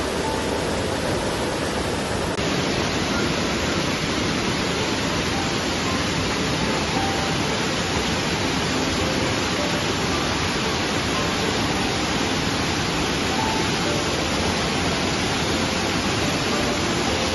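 Steady rush of a swollen stream pouring over rocks and boulders as whitewater.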